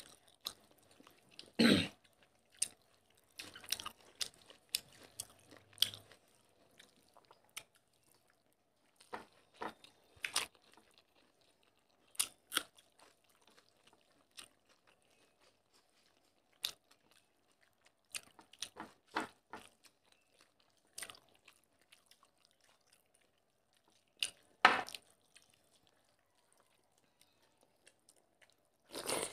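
Close-miked eating: two people chewing mouthfuls of rice and fish curry eaten by hand, with occasional crunches. The sounds come in short, irregular bursts with quiet gaps, the loudest about two seconds in and again near the end.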